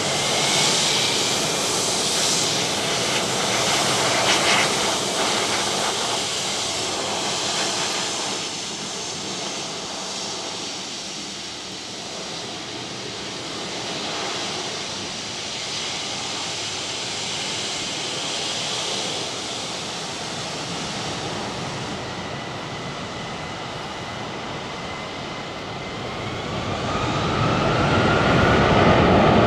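Boeing 757-300's jet engines running at low power as it taxis, a steady jet noise with a thin whine. Near the end the engines spool up: the whine rises and the noise grows louder as thrust is set for the take-off roll.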